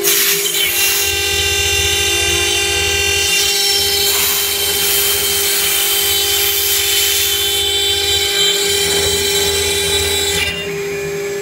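CNC router spindle whining steadily as its bit cuts aluminium composite panel, the cutting noise loud over the whine. A sharp click comes at the start, and the cutting noise drops away shortly before the end, leaving the spindle whine.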